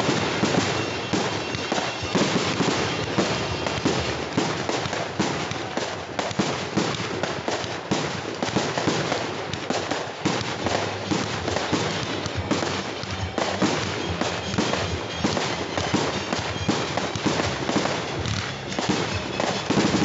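Aerial fireworks bursting in a rapid, unbroken string of bangs and crackles, many shells going off every second.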